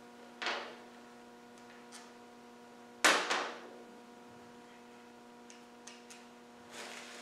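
Metal knocks and clicks from hand work on a bare Land Rover Series 1 engine block: a short rasp about half a second in, a loud sharp double knock about three seconds in, and a few light ticks later, over a steady electrical mains hum.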